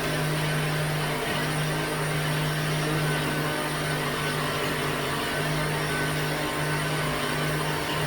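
Electric blender running steadily, its motor humming as it purées plantain and water, with a few brief dips in the hum.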